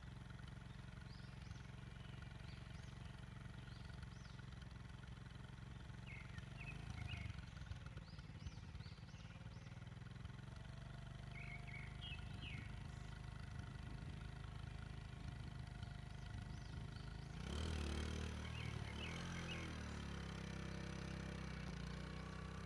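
Steady low hum of an idling vehicle engine, with small birds giving short chirps in little clusters; the background grows louder and rougher about 17 seconds in.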